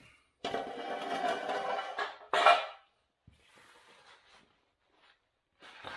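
The 80 Series Land Cruiser's rear spare tire mounting bracket scraping and ringing against the frame as it is worked loose and pulled down, then a loud metal clank about two and a half seconds in. Fainter clatter and shuffling follow.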